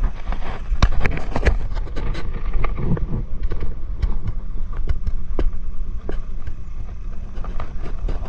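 Steady low rumble of wind and sea motion aboard a small wooden boat, with many scattered sharp knocks and clicks, thickest about a second in.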